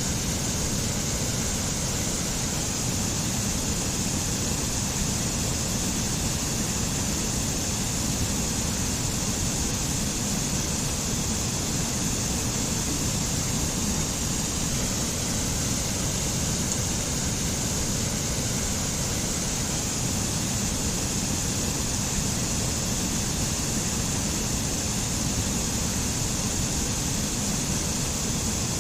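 Mountain waterfall: falling water rushing steadily, with a deep rumble underneath and a bright hiss on top.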